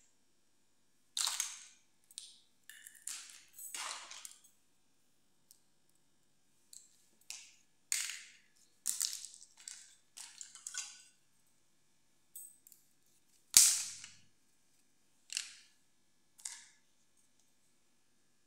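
Small plastic toys (miniature dolls, combs, a toy hair dryer, a curling brush) set down one after another on a tiled floor: about a dozen short sharp clacks and rattles at irregular intervals, the loudest about two-thirds of the way in.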